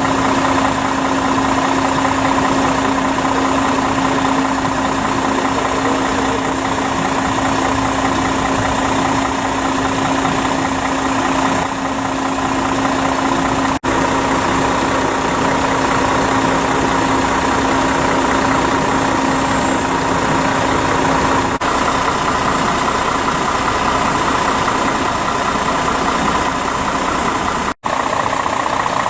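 Scania hook-lift fire truck's diesel engine idling steadily, with a steady hum, cutting out briefly three times.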